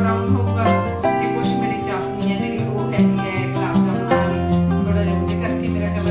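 Background instrumental music with plucked strings, a quick run of sharply struck notes over steady held tones.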